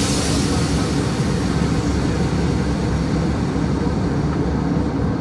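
Steady cabin noise of a jet airliner in flight: an even rush of engine and airflow noise, heaviest in the low end.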